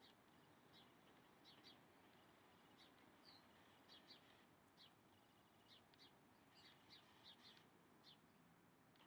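Faint bird chirps: short, high chirps, about two a second, over a steady low hiss.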